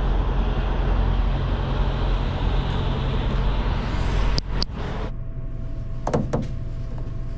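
Semi truck's diesel engine idling, with a steady hiss over it that cuts off about five seconds in. Two sharp clicks come just before the cutoff, and a few knocks about a second after it.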